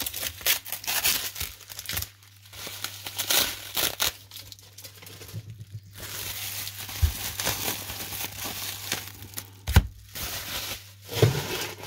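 Plastic bubble wrap crinkling and crackling in irregular handfuls, with tape tearing, as a wrapped bundle is pulled open by hand. A single dull knock about ten seconds in is the loudest sound.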